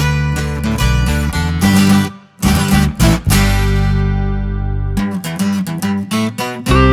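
Background music led by strummed acoustic guitar, with a short break about two seconds in and a held chord in the middle.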